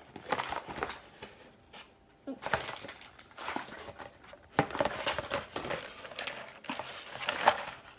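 Cardboard shipping box pulled open by hand in several bursts: flaps scraping and rustling, with crinkling from the packaging inside.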